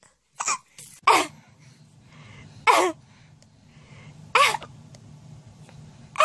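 Baby's short breathy laughing squeals, about four of them roughly every second and a half, each falling in pitch.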